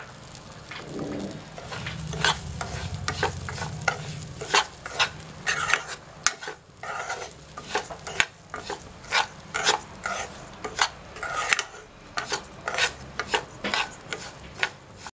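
Metal spatula stirring and scraping broken wheat rava around a kadai as it roasts in ghee, in repeated short scrapes against the pan over a light sizzle.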